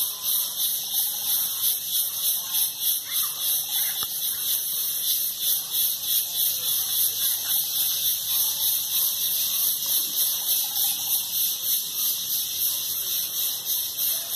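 High-pitched insect chorus from the riverside forest, a steady drone pulsing about three times a second.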